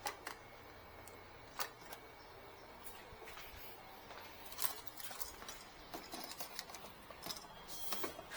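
Scattered light clicks and small knocks from handling objects at a workbench: a few at first, more often in the second half.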